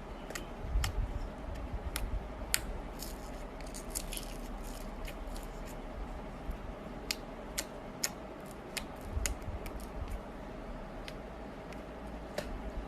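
Slime being handled, giving sharp irregular clicks and pops, with a couple of soft low squishes about a second in and again near nine seconds.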